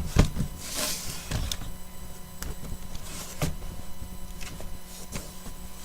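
A cardboard box being handled and turned over: a few sharp knocks and thumps, with brief scraping rustles between them.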